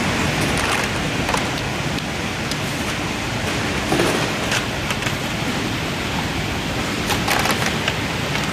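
Conveyor tray washing machine running, its water sprays making a steady, loud rushing hiss, with a few short clatters of trays or metal parts about four seconds in and again near the end.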